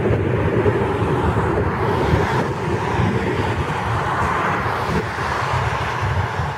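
Thunderstorm wind gusting over the microphone: a steady, loud rushing noise with a low, fluctuating rumble.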